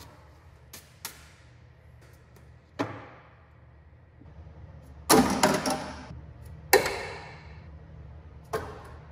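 Several separate knocks and clatters of hard parts being handled and refitted in a car's engine bay, the loudest cluster about five seconds in, over a steady low hum.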